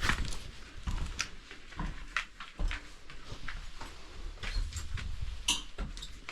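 Footsteps crunching over debris: scattered sharp clicks with irregular low thumps.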